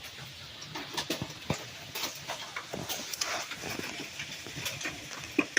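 Hailstones pelting down in wind-driven rain: a dense, irregular patter of sharp ticks and knocks over a steady hiss of rain.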